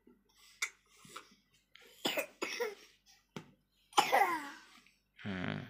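A child with a cough and cold coughing: a few separate coughs, the loudest about four seconds in.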